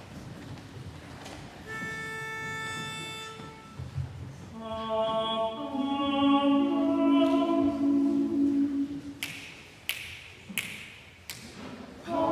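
Men's a cappella group: a single steady starting note sounds first. The voices then hold a soft sustained chord, four sharp, evenly spaced percussive hits follow, and loud full singing begins right at the end.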